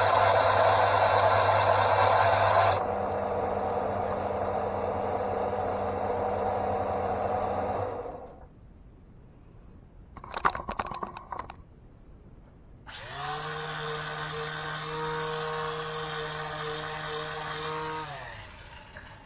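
Draper Storm Force belt and disc sander grinding a wooden piece on its belt, loud over the motor hum. About three seconds in the wood comes off and the motor runs freely until it is switched off about eight seconds in. After a few knocks, the sander starts again about thirteen seconds in, runs steadily for about five seconds and winds down.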